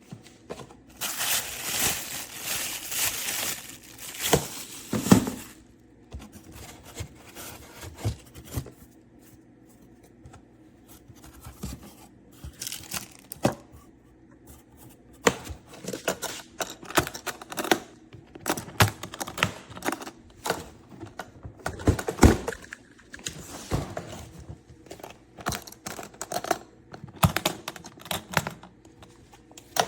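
Handling of an aluminium makeup case and its contents: a loud crinkling rustle, like plastic being crumpled, for a couple of seconds near the start, then a long run of irregular clicks and knocks.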